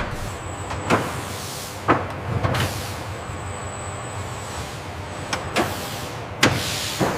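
Factory machinery running with a steady whirring hum and a thin high whine, with five sharp clunks spread through it.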